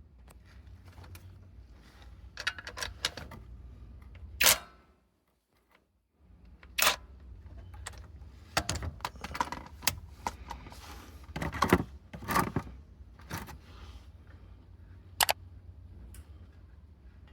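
Scattered sharp clicks and metallic knocks from tools and metal parts being handled, with a short silent break about five seconds in.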